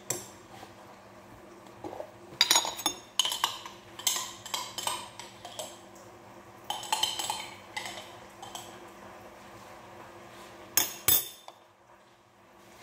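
Kitchen clatter: a small glass jar, its lid and metal utensils clinking and knocking in quick bursts while seasoning a pot, with two sharp knocks near the end. A faint steady hum runs underneath.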